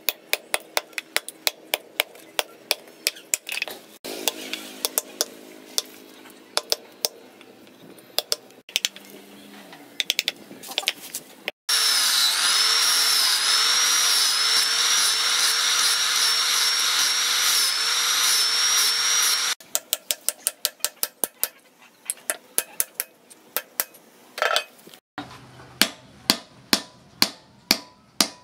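Hammer tapping repeatedly, a few blows a second, on a knife handle being fitted. Midway, an angle grinder with a flap disc runs for about eight seconds, its whine wavering in pitch as it grinds the handle end. Then the hammer taps resume, louder toward the end.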